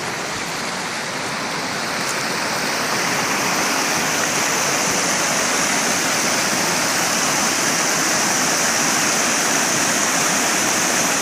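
Waterfall rushing steadily, growing a little louder over the first few seconds.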